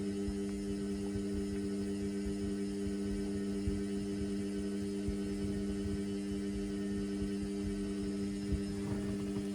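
Indesit washing machine running mid-wash on a synthetics cycle, a steady low hum with no change in pitch, while the drum is overloaded with suds.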